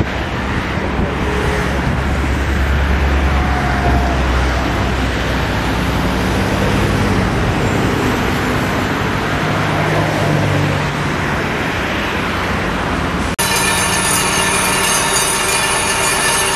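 Heavy construction machinery, diesel cranes, excavators and dump trucks, running together in a steady noisy rumble with a deep engine tone. About thirteen seconds in it cuts abruptly to a steadier, higher droning hum made of many even tones, from the machinery at a crane-held pile hammer.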